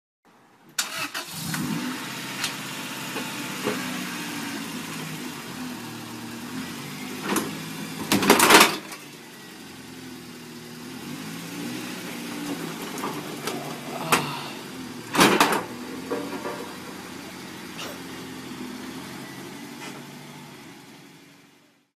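A car engine running, its pitch rising and falling as it revs. Two loud sudden noises break in, about eight and fifteen seconds in.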